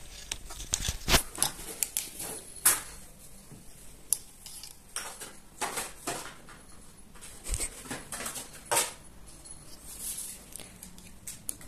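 Irregular light clicks, taps and rustles as a young cat bats a small object around on a tiled floor, mixed with the phone being handled.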